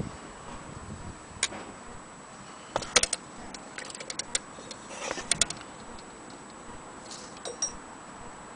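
Scattered light metallic clicks and small rattles from an antique 400-day anniversary clock being handled, coming irregularly in little clusters rather than as a steady tick.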